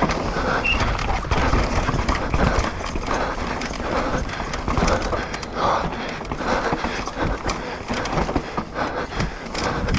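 Mountain bike ridden fast down a dry dirt trail: tyres rumbling and crunching over the ground, with a constant clatter of knocks and rattles from the bike as it hits bumps and roots.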